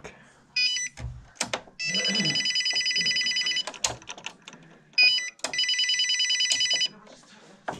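Stairlift's electronic warning beeper trilling in a fast high warble as its overspeed-governor safety switch is pressed. It comes in two long bursts of about two seconds and a second and a half, with short chirps between. A few sharp clicks of the carriage's parts being handled come in the gaps.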